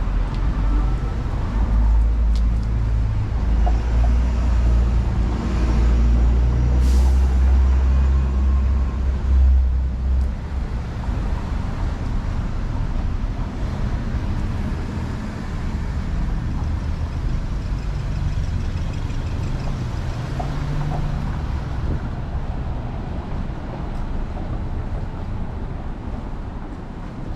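City street traffic: a heavy vehicle rumbles deep and loud through the first ten seconds, with a short sharp hiss of air-brake release about seven seconds in, then a steadier, quieter traffic noise.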